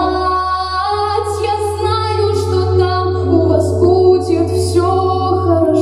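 A young female vocalist singing long held notes into a microphone over instrumental accompaniment with a steady low bass.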